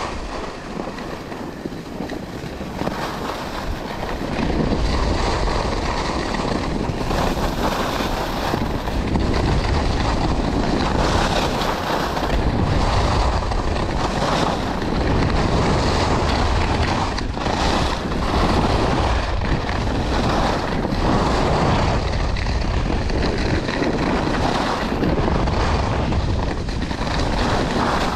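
Skis sliding and turning over packed, groomed snow on a downhill run, with wind buffeting the microphone; the noise grows louder about four seconds in as speed picks up and surges and dips with each turn.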